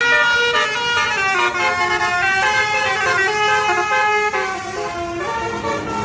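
Basuri telolet multi-tone air horn on a tour bus playing a quick tune: several horn tones sound together and step to a new pitch every fraction of a second.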